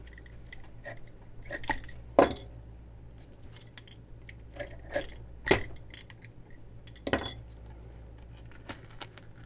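Intermittent metallic clinks and knocks of tools and metal parts being handled while a stub of old hose is worked off the removed water pump, with three sharper knocks about two, five and a half, and seven seconds in.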